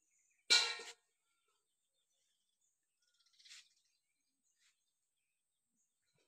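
A bird gives one loud, short call about half a second in, and a fainter high chirp follows around three and a half seconds in; otherwise near silence.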